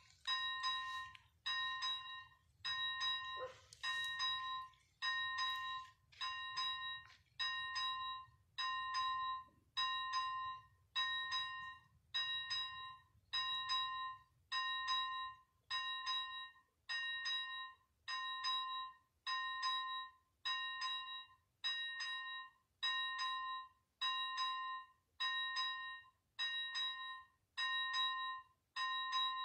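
Level-crossing warning bell (ZV-01 type on an AŽD 71 warning signal) ringing about once a second, each stroke a clear ringing tone that dies away before the next: the crossing is active, warning that a train is approaching.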